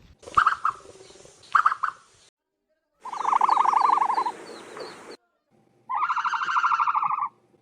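A series of separate ostrich calls. Two brief high chirps come in the first two seconds. About three seconds in there is a rapidly pulsed, trilling call, followed by two more pulsed, buzzy calls near the end, each about a second and a half long. Each call starts and stops abruptly.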